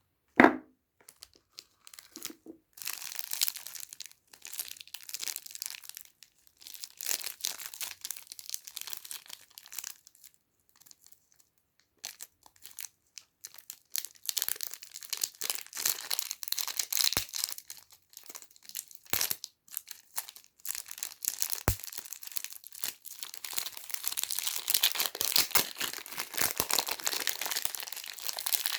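Soap wrapping crinkling and tearing as a bar of soap is unwrapped, in bursts with short pauses between. A sharp knock about half a second in is the loudest sound, with a few light thuds later on.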